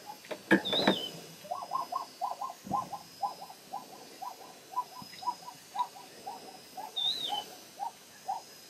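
An animal calling a long, steady series of short high notes, about four a second, with a few sharp knocks near the start and a high whistled note twice.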